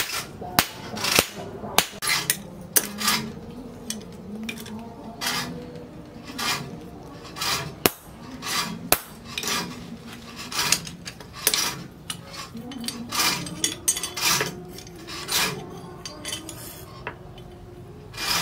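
Hand hammer striking a steel knife blade on an anvil while forging and bending it: a run of sharp metallic clinks, irregular, about one or two a second, thinning out near the end.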